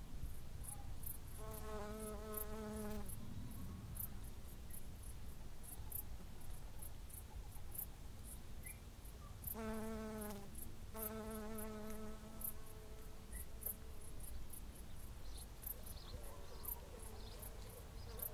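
Insect chirping: short, very high-pitched chirps repeating two or three times a second, over a low wind rumble. Three times a brief humming tone with overtones sounds and fades, the first about two seconds in and the others around ten to twelve seconds in.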